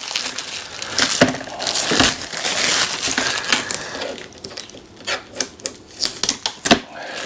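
Hands working on the plastic covers and packing of a new Epson P900 photo printer during unpacking: crinkling of packing material with many irregular clicks and knocks from the plastic parts. It is busiest in the first half and sparser and quieter in the middle.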